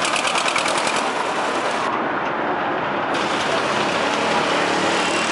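Several diesel tractor engines and other vehicle engines running together in slow-moving traffic, a steady mass of engine noise. A fast, even ticking sits on top of it for about the first second.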